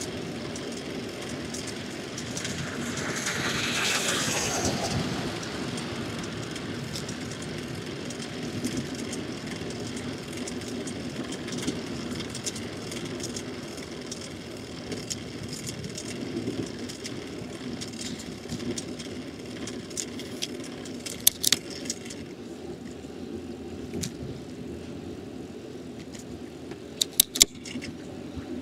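Street traffic and road noise heard from a bicycle riding along a city street. A vehicle passes about three to five seconds in, swelling louder and falling in pitch. Short sharp clicks come twice near the end.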